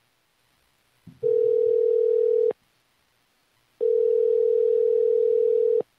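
Telephone ringback tone heard on the calling end of a phone line: two steady rings, the second longer, with a short silence between them.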